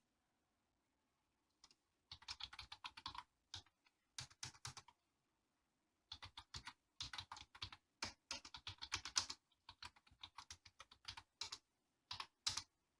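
Typing on an LG K-4000 membrane keyboard with chocolate-style keycaps: several runs of quick key presses with short pauses between them, peaking at about 60 dB on a sound level meter.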